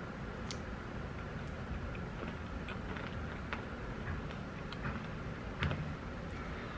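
Wooden spoon scraping and tapping in a paper cup of Greek yogurt and granola while eating: scattered small clicks, the strongest about five and a half seconds in, over a steady low background noise.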